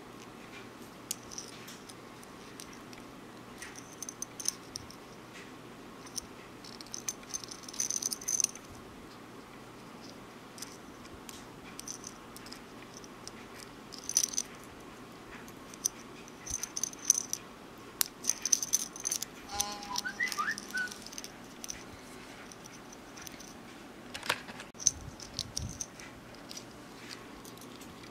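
Small metal lure parts (bottle caps, wire, beads) clicking and rattling in the hands in scattered bursts while a lure is put together. A short run of faint rising squeaks about two-thirds of the way in.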